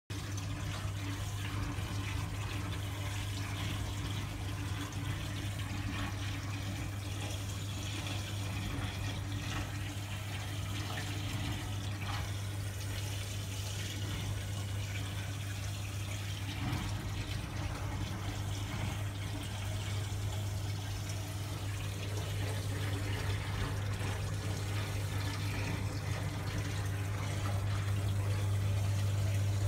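Aquarium pump and filter running: a steady low hum under continuous water trickling and splashing, getting a little louder near the end.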